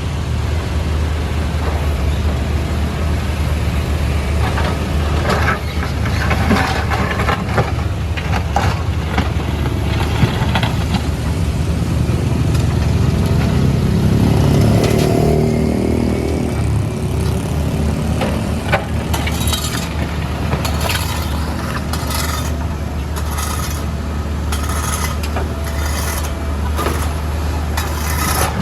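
Backhoe loader's diesel engine running steadily under load, its note rising and falling about halfway through, with many sharp knocks and cracks in the second half as the road pavement is broken up.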